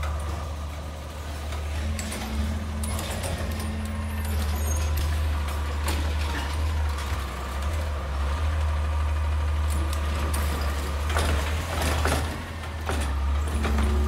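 Autocar garbage truck with a Rapid Rail automated side-loader body, its diesel engine running with a deep, steady drone. Several sharp knocks and clatters sound over it, and a steady hum comes and goes.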